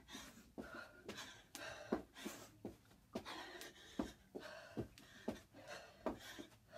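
A person panting from hard exercise, under soft thuds about twice a second of sneakers and hands landing on a carpeted floor during a squat-and-jump move.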